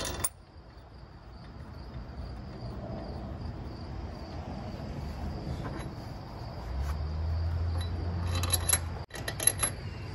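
Light metallic clinks of cylinder head bolts being handled and started by hand, clustered in the last two seconds, over a steady high insect drone. A low hum comes in for about two seconds just before the clinks.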